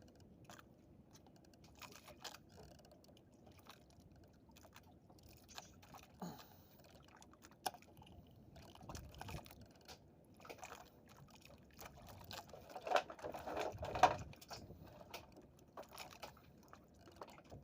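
Faint scattered clicks and handling noises over a low background hiss, with a busier, louder stretch of rustling about three quarters of the way through.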